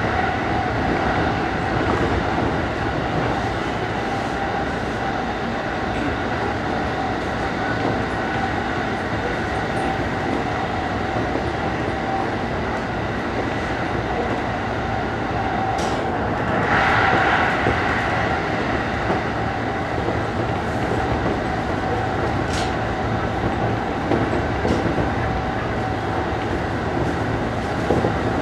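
E233 series electric commuter train running between stations, heard from the cab: a steady rumble of wheels on rail under a constant tone, with a few sharp clicks. About 16 seconds in, a brief louder, higher hiss rises and fades.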